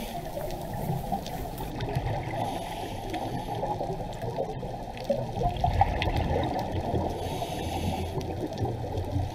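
Underwater sound on a coral reef: a steady, rough rush and gurgle of moving water, swelling a little past the middle, with scattered faint clicks.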